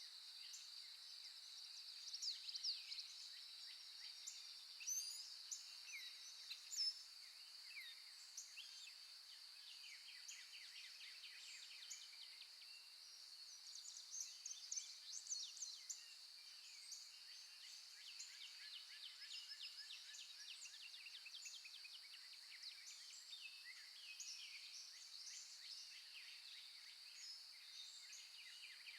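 Faint natural birdsong ambience: many wild birds chirping and trilling, in louder clusters a few times, over a steady high-pitched buzz.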